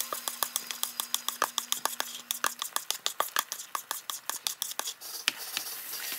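Beaten eggs crackling in hot oil and butter in a frying pan, a rapid, irregular run of small pops.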